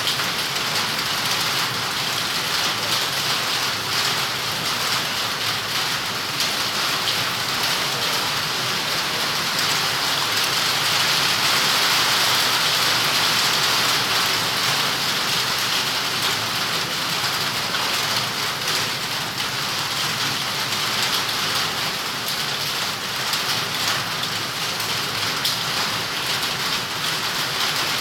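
Heavy rain falling steadily, a dense even hiss that swells slightly about halfway through.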